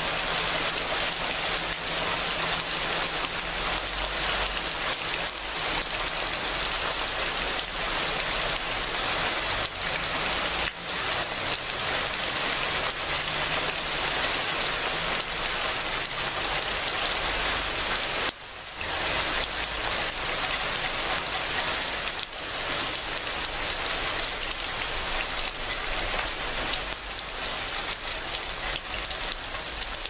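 Steady rain with a dense patter of drops. The sound dips briefly about eighteen seconds in.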